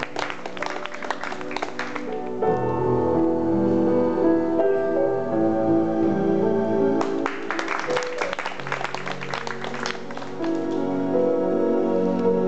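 Slow piano music playing, with audience applause breaking out twice: once at the start for about two seconds, and again from about seven to ten seconds in.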